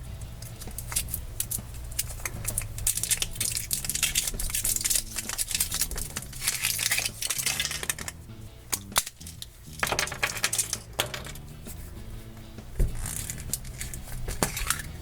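Foil wrapper of a chocolate surprise egg being crinkled and peeled off, a dense run of crackling and small clicks, with a sharper snap near the end as the egg is broken open. Soft background music plays underneath.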